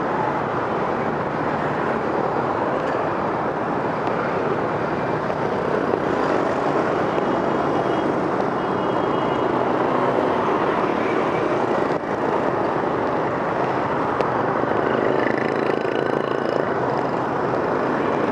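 Steady city street traffic noise, with vehicles running past.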